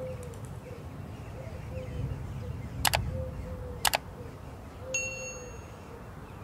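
Two crisp mouse clicks about a second apart, then a single bright bell ding that rings out for under a second: the sound effects of a subscribe-button animation.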